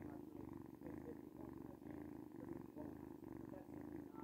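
Domestic cat purring close to the microphone, a steady rumbling purr that swells and dips in even cycles with its breathing, about one and a half cycles a second.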